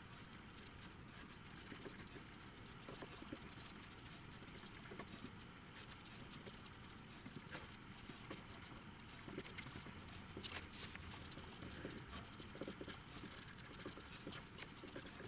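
Faint, irregular scratching and tapping of a small paintbrush stroking grey paint onto a cardboard base.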